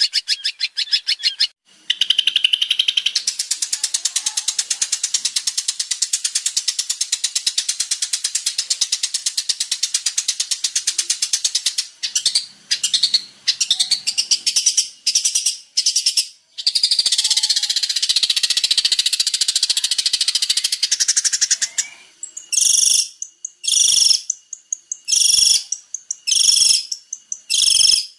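Long-tailed shrike (cendet) singing: a long run of fast, rattling high-pitched chatter with a few short breaks, then short separate high calls about once a second near the end.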